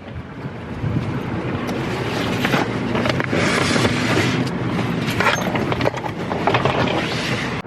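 Steady rushing noise of a car on the move, road and wind noise.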